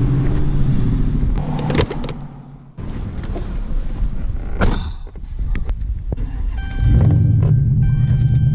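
A car engine running, broken by sharp clicks and a thunk in the middle, then running louder again from about seven seconds in, with a faint steady electronic tone over it.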